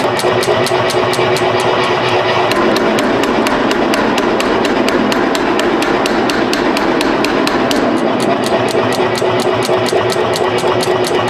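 Power hammer pounding steel at a steady rapid pace of about four to five blows a second, with its machine noise running underneath.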